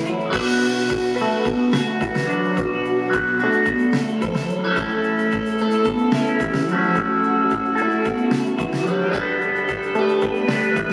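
Live rock band playing an instrumental passage: two electric guitars over a steady drum beat, with no singing.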